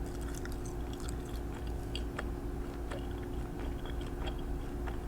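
Close-miked small clicks and soft crackles, scattered irregularly, over a steady low hum.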